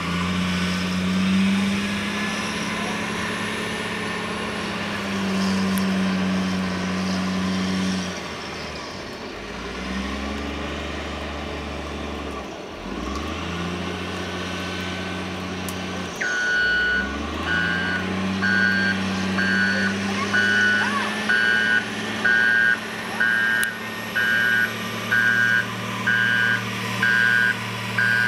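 Large snow-removal tractor's engine running and revving up and down as it works, dropping back several times. From a bit past halfway, a reversing alarm beeps about once a second.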